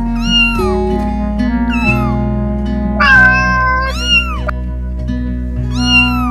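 A cat meowing about five times, short falling calls with the loudest one near the middle, over background music of steady held notes.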